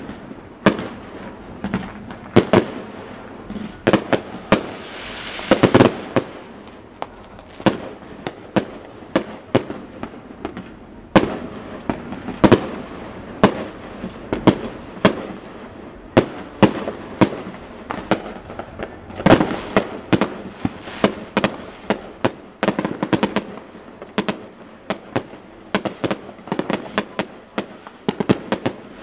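Aerial fireworks display: an irregular, continuous run of sharp bangs and booms, often several a second.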